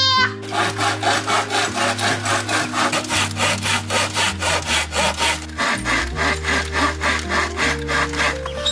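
Hand saw cutting through a thin wooden board in quick, even back-and-forth strokes, about three a second.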